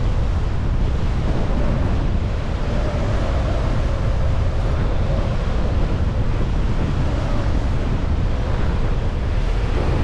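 Steady rush of wind and airflow during parakite flight on a Flare Moustache 18 wing, picked up by a GoPro 10 fitted with a Windslayer windscreen. A faint steady whine rides over it for much of the middle.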